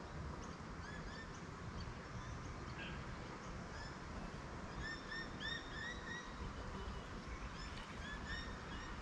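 Birds calling in quick bursts of short, arched chirps, thickest about halfway through and again near the end, over a steady low rumble.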